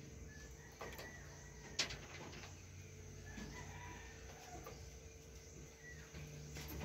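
Faint short animal calls over a steady low hum, with one sharp click a little under two seconds in.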